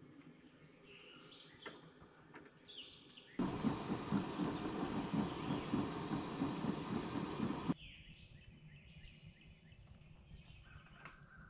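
Outdoor ambience with faint bird chirps. It is broken by about four seconds of loud, even noise that starts and stops abruptly.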